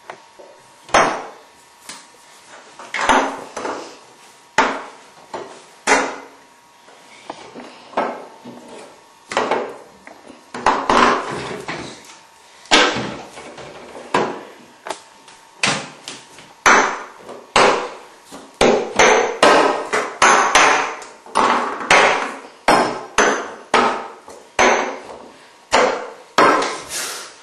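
A long run of sharp knocks and clatters, irregular, about one or two a second, each ringing briefly, louder and more frequent in the second half.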